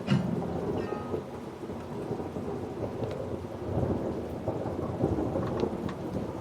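Steady rain with rolling thunder rumbling underneath. The last acoustic guitar chord rings out and fades in the first second or so.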